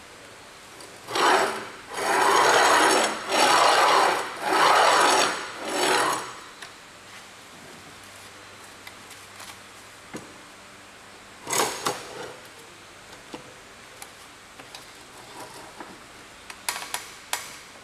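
The movable wooden jaw of a quick-release woodworking vise is slid along its steel guide rods and lead screw, making five rasping scrapes of about a second each. Later there is a short knock as a board is set between the jaws, then a quick run of sharp clicks as the jaw is closed and the handwheel is worked.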